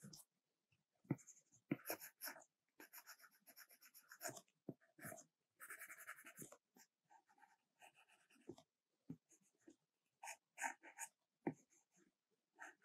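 Stylus strokes and taps on an iPad's glass screen while drawing, in short, irregular, quiet scratches with brief pauses between them.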